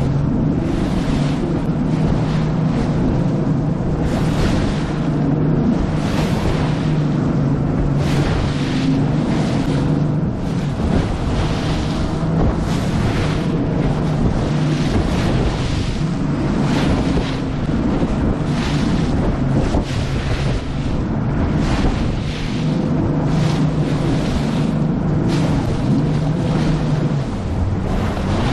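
2018 Nitro Z20 bass boat running through waves: a steady outboard engine drone under heavy wind noise on the microphone, with repeated splashes as the hull slams into the waves and throws spray.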